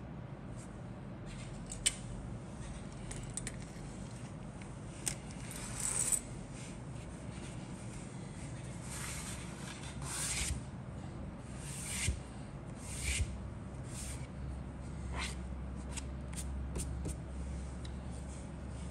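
Plastic model kit parts being handled: a scattering of light clicks and brief rubbing and scraping as parts and sprues are picked up, turned over and set down on a cutting mat, over a steady low hum.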